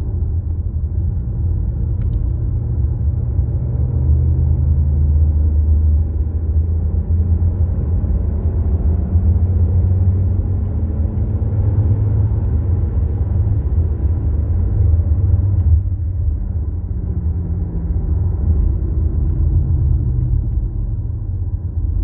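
Cabin noise of an Infiniti sedan driving at road speed: a steady low rumble of engine and tyres, with faint tones drifting slowly in pitch. A single short click about two seconds in.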